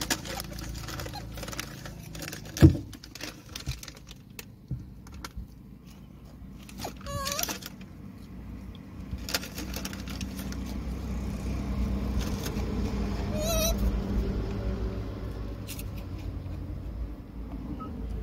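Low rumble of road traffic heard from inside a car, swelling through the middle as vehicles pass. A single sharp knock comes about two and a half seconds in, with light clicks and two brief wavering high tones later on.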